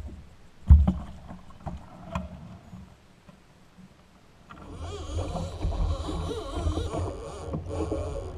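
A heavy thump on the kayak about a second in and a few light knocks while a caught fish and tackle are handled, then a steady, dense, wavering sound over the last few seconds.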